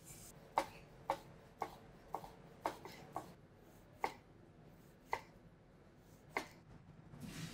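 Chef's knife cutting on a wooden chopping board, chopping herbs and slicing a radish into rounds: nine sharp knocks of the blade on the board, irregularly spaced about half a second to a second apart.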